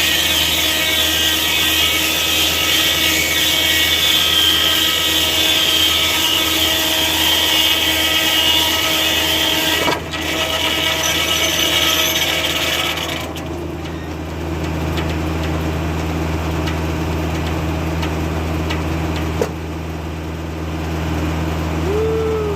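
Foley-Belsaw circular sawmill blade cutting through an oak log, over the steady drone of the tractor engine that drives it. There is a brief break in the cut about ten seconds in, and the cut ends about thirteen seconds in. The blade and engine then keep running with no load.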